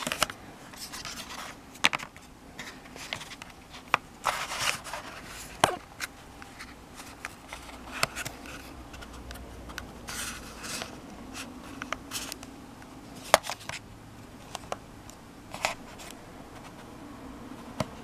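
Handling noise from fitting rubber side rails onto a 2.5-inch SSD: scattered clicks and taps with short scrapes and rubs of rubber, plastic and metal, irregular throughout.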